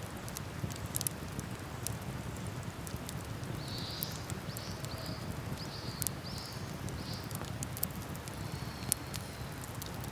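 Wood campfire crackling with scattered sharp pops over the steady rush of a river. In the middle, a bird gives a series of about six short, high chirps.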